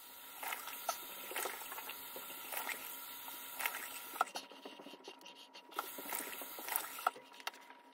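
Face being washed at a bathroom sink: faint, irregular small splashes and drips of water from hands and face, over a light hiss of water that fades about halfway through.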